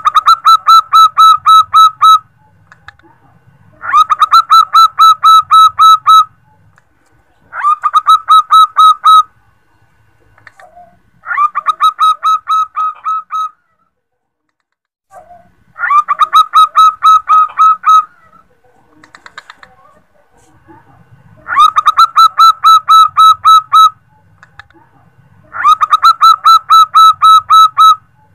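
Female zebra dove calling for a male. Seven bouts of quick, clipped, evenly repeated notes, about five a second, each bout lasting about two seconds with a pause of a few seconds between bouts.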